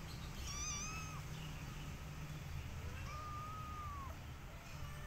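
Kitten meowing twice in high, thin calls. The first is short, about half a second in; the second is longer, about three seconds in, holding its pitch and then dropping at the end.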